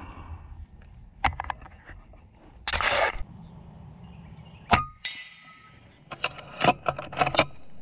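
Shots from an FX Impact .30 PCP air rifle: sharp cracks and impacts. The sharpest, about five seconds in, is followed by a short metallic ring, and a quick cluster of sharp strikes comes near the end.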